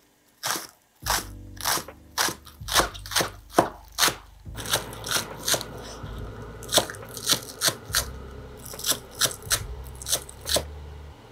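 Chef's knife chopping green onions on a cutting board: steady, even chops, about two to three a second, with a low steady hum underneath.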